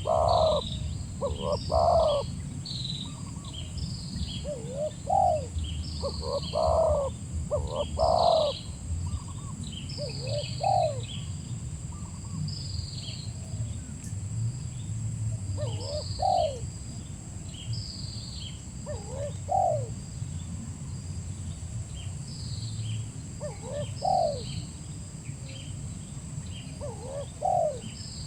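Spotted dove (tekukur) cooing, a short phrase every few seconds, louder in the first ten seconds. Small birds chirp continuously over it.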